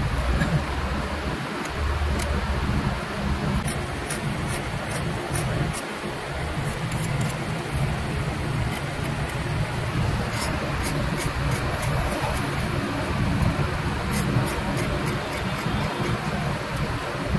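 A pointed metal tool scratching lines into the lacquer of a turned wooden piece, heard as many short, light scratching ticks over a steady low background rumble.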